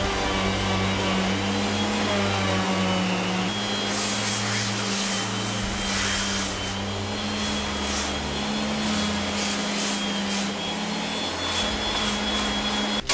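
Electric sander with a dust-extraction hose running steadily against an old brick wall, grinding off the surface layer.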